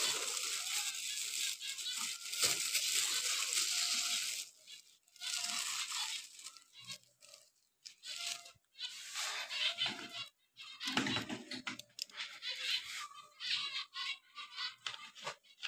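Handling noise from a plastic seed feeder tray and seed husks on a shelf: about four seconds of steady rustling, then irregular scrapes and crackles.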